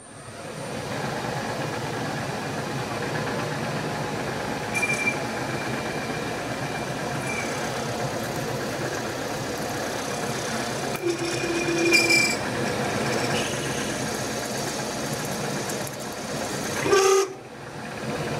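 Milling machine spindle running a 10 mm slot drill as it cuts down through a thin aluminium bar: a steady machine drone with a low hum, building up over the first second. Brief high squeals from the cut come twice, and there is a short louder burst near the end.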